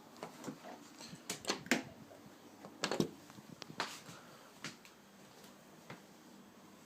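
A scatter of small clicks and knocks, like objects being handled. The loudest come about a second and a half in and again around three seconds, then they thin out and grow fainter.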